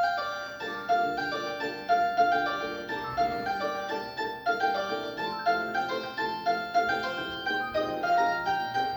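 A mobile phone's polyphonic ringtone: a bright, piano-like melody of short struck notes, joined about half a second in by a lower chordal accompaniment.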